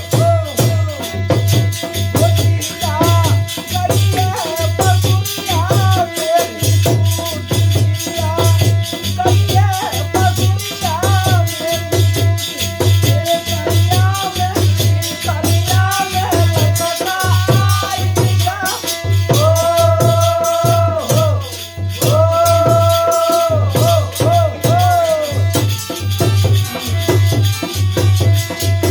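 Instrumental passage of a Holi folk song: a lead melody with bending phrases and long held notes over fast, dense percussion and a steady low beat.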